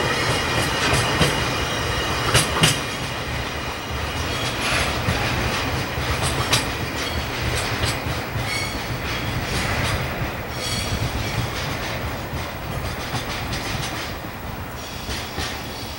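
Oil tank wagons of a departing freight train rolling over rail joints and points: wheel clicks with a low rumble and an occasional brief wheel squeal, slowly fading as the end of the train draws away.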